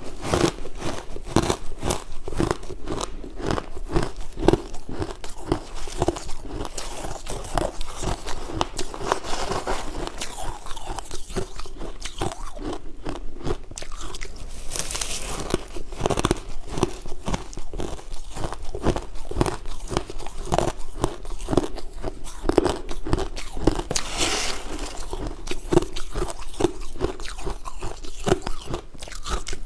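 A person biting and chewing freezer frost close to the microphone: dense, continuous crunching and crackling in a steady chewing rhythm, with a couple of brighter, crisper bites.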